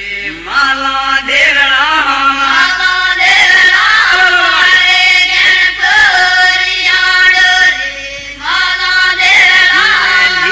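A group of men chanting a devotional song (bhajan) together in long sung phrases, with a short break between phrases about eight seconds in.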